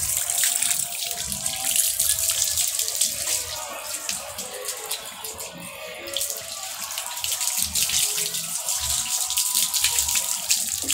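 Water poured from a plastic watering can, splashing steadily over a dog's back and onto a wet floor.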